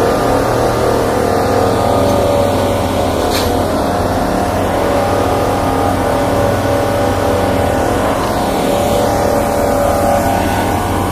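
Diesel engine of a yellow railway track maintenance machine running steadily and loudly close by, with a constant low hum.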